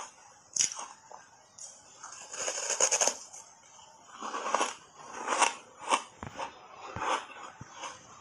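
Hard ice coated in matcha powder being bitten and chewed in the mouth, with crisp crunching and crackling. A dense run of crunching comes about two to three seconds in, then separate crunching chews about twice a second.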